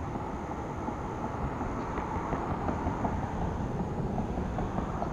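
Steady outdoor background noise: a low rumble with a faint, thin high hum running through it.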